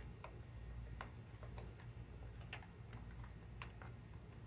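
A spoon clicking and scraping against a bowl while stirring flour and conditioner into slime: faint, irregular light clicks, a few a second, over a steady low hum.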